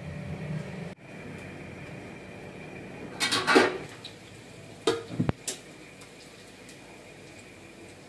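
Spatula clattering and scraping against a frying pan of chicken pieces frying in oil, in two bursts of knocks about three and five seconds in, over a steady hiss of the hot oil.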